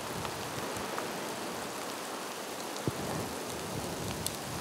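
Steady rain falling, with scattered drop ticks and one sharper drip about three seconds in.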